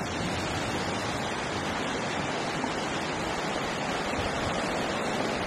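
Steady rushing noise of sea water with small waves.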